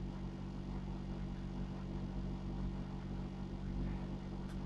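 Steady low mechanical hum from a running machine, with a faint click near the end.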